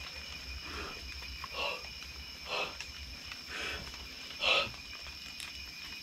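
Soft movement sounds from a person clambering through a cramped wooden doorway onto a dirt floor, coming about once a second, over a steady high-pitched whine and a low rumble.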